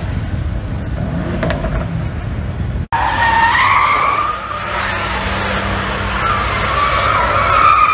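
A car doing burnout donuts, its tyres squealing in a long, wavering screech that rises and falls over the engine. Before that, for about the first three seconds, there is only a low rumble of vehicles.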